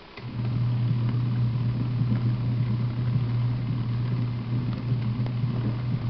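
Portable mini washing machine's wash motor switching on a moment in and running with a steady low hum as its agitator churns the soapy water: one of the machine's on-and-off wash cycles.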